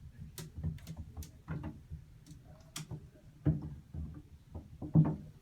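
Kittens playing in a bathtub: scattered light clicks of claws skittering on the tub and a few dull thumps, the loudest about three and a half and five seconds in.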